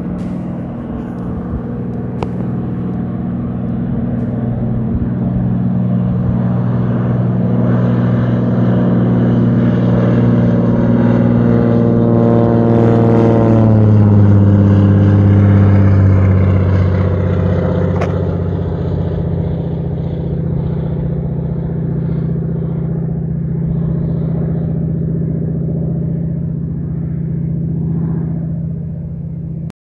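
Float plane's propeller engine running under power as it takes off from the lake: a steady drone that grows louder toward the middle, drops in pitch about halfway through, then fades slowly as the plane climbs away.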